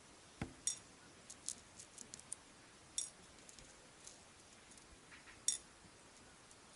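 Metal tweezers picking through tiny model-ship pulley blocks in a small metal dish: faint, irregular clicks and light metallic clinks, with a few clustered early and one clearer clink about five and a half seconds in.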